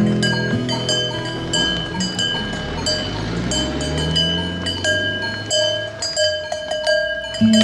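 Cowbells clanking irregularly, each strike left ringing.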